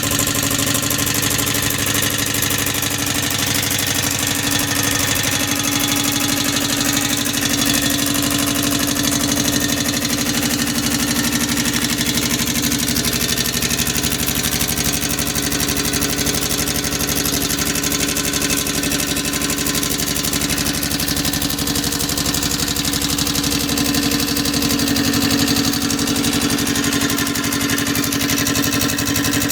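Refrigerator compressor converted into a steam engine, running steadily with a fast, even beat and a hiss.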